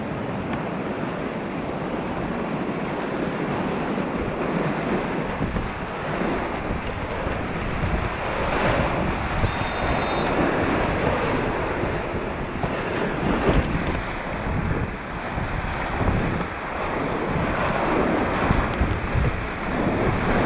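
Whitewater rapid rushing and splashing around a kayak, with waves breaking over the bow in irregular surges. Wind buffets the microphone.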